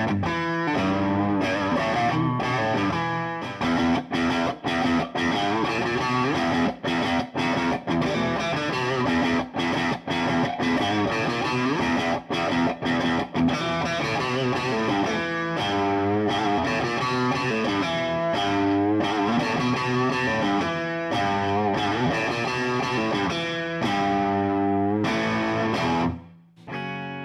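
Electric guitar played through an amp: an Ibanez semi-hollow body with Stonewall Slutty Wolf H90 pickups, which are humbucker-sized P90s, playing chords and riffs with short stops between phrases. Near the end the playing cuts off and a new passage starts.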